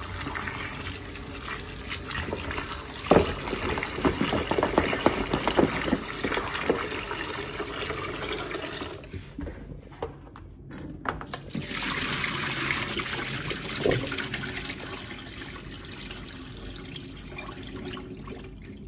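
Tap water running into a metal pot of flour-coated lamb trotters in a kitchen sink, with hands rubbing and splashing the pieces in the milky water. The water sound drops away briefly about nine seconds in, as the pot is tipped to drain, then picks up again.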